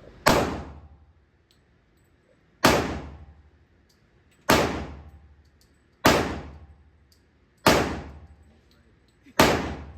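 Handgun shots fired one at a time in slow, aimed fire: six sharp, loud reports about one and a half to two seconds apart, each ringing out and dying away over about a second.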